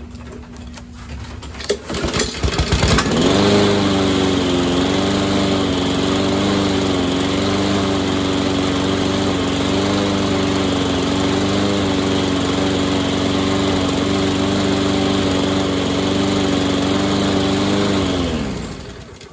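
Walk-behind lawnmower's overhead-cam engine starting: a couple of seconds of starting rattle, then it catches about three seconds in and runs at a steady speed. Near the end it is shut off and winds down to a stop. It runs with its blade now installed right side up, which the owner judges good.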